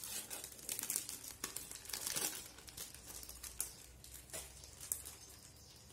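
Thin clear plastic film being peeled off a processed cheese slice, crinkling in irregular crackles that are busiest in the first half and thin out to a few sharper isolated crackles later.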